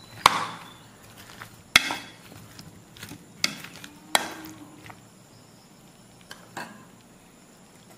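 A spoon stirring cut pineapple chunks in a disposable plastic bowl, knocking against it: a handful of sharp knocks, the two loudest in the first two seconds, weaker ones around the middle and one near the end.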